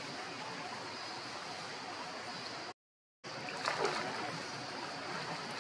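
Steady running-stream water noise that cuts out completely for about half a second near the middle, with a short, sharper call-like sound about a second after it returns.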